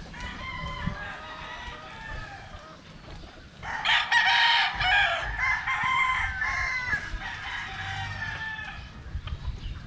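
Rooster crowing, with fainter calls early and a louder, longer crow starting about four seconds in.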